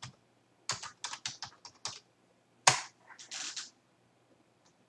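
Typing on a computer keyboard: a quick run of about seven keystrokes, then one louder click near three seconds in, followed by a short soft hiss.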